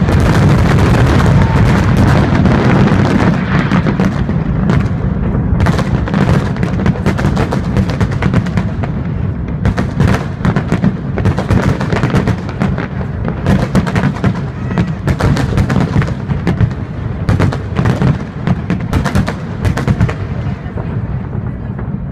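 Fireworks display: a dense barrage of aerial shell bursts and crackle, breaking up after about four seconds into separate bangs that grow sparser toward the end.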